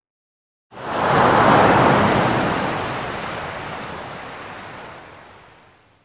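A single wave breaking and washing up as a rush of surf. It starts abruptly a little under a second in, is loudest soon after, and fades away over about five seconds.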